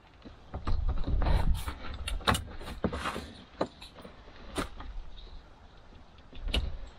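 Plastic clicks, knocks and rubbing as a rocker switch and its dash panel are worked loose by hand from a UTV's plastic dashboard, with a few duller thumps of handling.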